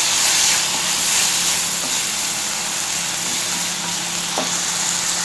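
Chopped onions, tomatoes and green chillies sizzling steadily in oil in an iron kadhai on a low flame while being stirred with a wooden spatula.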